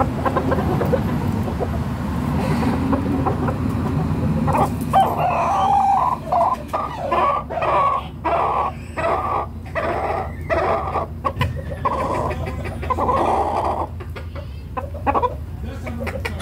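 Domestic chickens, hens and a rooster, clucking in a quick run of short calls, about two a second, starting a few seconds in and easing off near the end.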